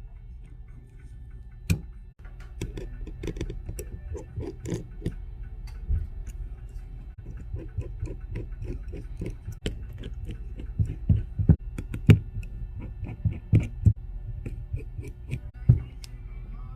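Irregular clicks and light taps of small tools and parts being handled during an iPhone screen replacement, with a few sharper knocks, over a steady low hum.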